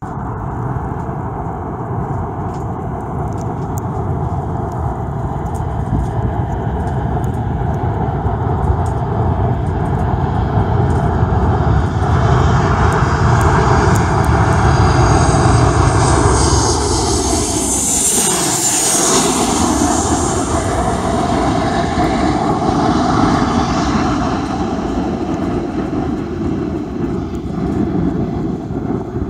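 Ryanair Boeing 737-800's twin CFM56 jet engines on landing approach, the roar growing louder as it nears. It sweeps past with a sharply falling pitch about 18 seconds in, then keeps running at a lower level as the jet floats down over the runway.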